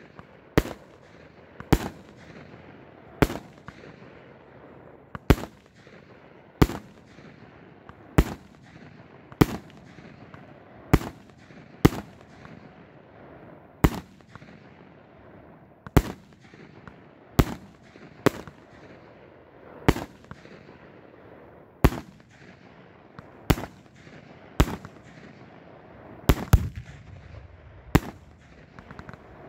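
A 25-shot 200 g consumer firework cake firing its shots one after another: sharp bangs with a short echo, spaced about one to two seconds apart, with a quick run of several bangs near the end.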